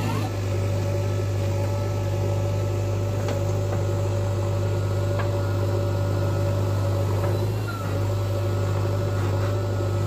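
JCB 3DX backhoe loader's diesel engine running steadily under digging load, with a steady whine over the low hum as the hydraulics work the backhoe arm; the sound dips briefly near the end.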